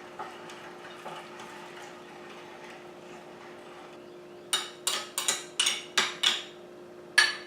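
Kitchen utensils clinking against dishes: a quick run of about seven sharp clinks about four and a half seconds in, then one more near the end, over a steady low hum.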